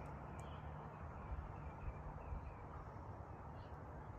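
Faint steady low outdoor rumble, with a short run of soft, high bird chirps in the first half and one more small note near the end.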